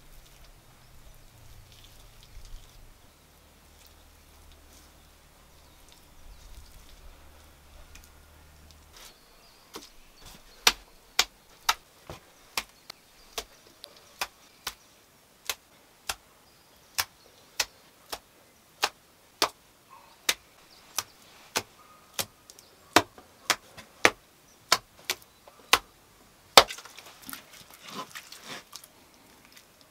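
A series of sharp, separate clicks, roughly two a second, starting about ten seconds in, with the loudest one near the end.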